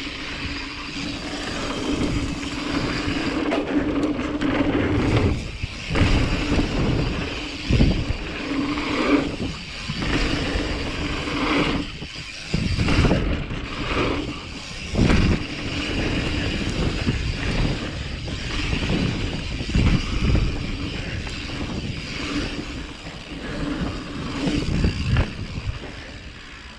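Mountain bike ridden down a dirt jump line: a steady rushing rattle of tyres and bike over dirt, broken by a heavy thump from a landing every few seconds.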